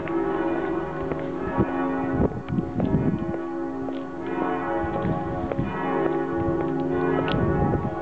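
Church bells pealing, several bells struck again and again so that their ringing tones overlap into a continuous peal.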